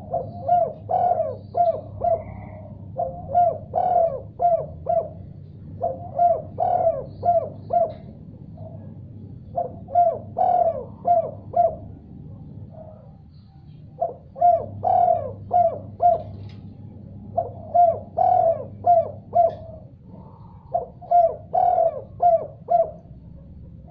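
Spotted dove (tekukur) cooing: about seven runs of quick, repeated coo notes, each run lasting around two seconds with short pauses between, over a faint steady low hum.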